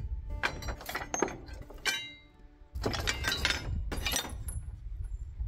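Pieces of rusty scrap steel clinking and knocking together as a gloved hand rummages through a crate of scrap metal. There are several separate clanks, some ringing briefly, with a short lull about halfway through.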